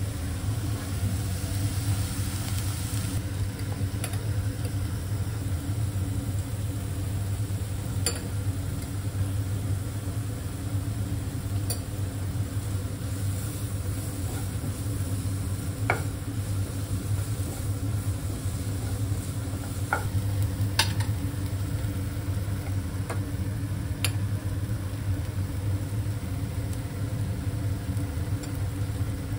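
Chopped onion, capsicum and carrot sizzling as they are stir-fried in a non-stick pan, with a spatula pushing them around and a few sharp taps of the spatula against the pan. A steady low hum runs underneath.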